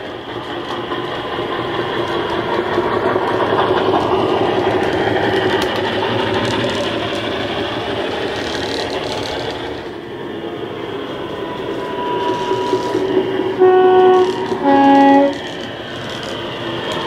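Class 50 diesel locomotive sound played by a DCC sound decoder (Legomanbiffo sound file) through a large EM2 speaker in a Hornby model locomotive: the diesel engine runs steadily. About 14 s in come two short horn blasts, the first higher and the second lower, which are the loudest sounds.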